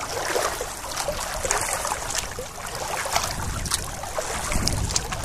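Kayak paddle strokes dipping into the water: a steady run of splashes and drips from the blades.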